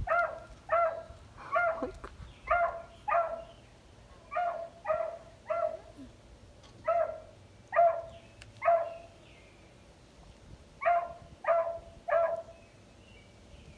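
Dog barking over and over in short, high-pitched barks, mostly in quick runs of two or three, with a short pause about two-thirds of the way through.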